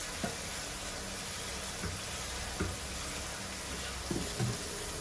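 Onion, tomato and chilli masala sizzling steadily in a stainless steel wok over a gas flame, with a few light knocks.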